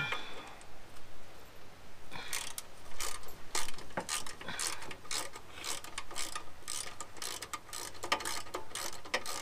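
Ratchet spanner clicking in quick runs as bolts on a roller lawnmower's bottom plate are turned out, starting about two seconds in.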